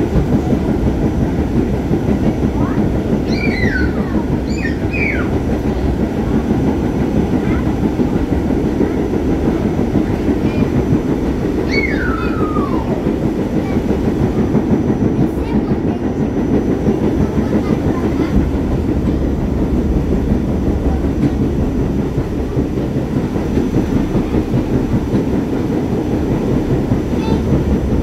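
R44 subway car running on the rails, a steady heavy rumble of wheels and running gear with no break, heard from aboard the car.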